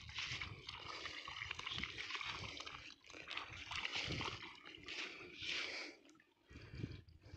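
Shallow muddy water sloshing and dribbling as two cows stand in a puddle and drink, with uneven small splashes.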